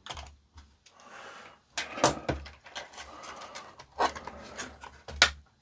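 Handling noise from a DAB radio being taken apart: several sharp plastic clicks and knocks, with quieter scraping and rubbing between them.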